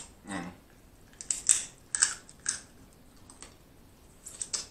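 Snow crab leg shell being cracked and picked apart by hand and eaten close to the microphone: a string of short, irregular crunchy snaps and cracks.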